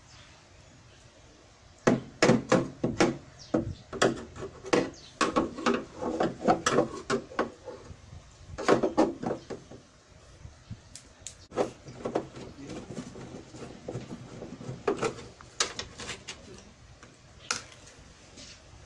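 Irregular hard clicks and knocks on a CRT TV's plastic back cabinet as it is being worked loose to open it. The knocks come in quick clusters for the first half, then grow sparser.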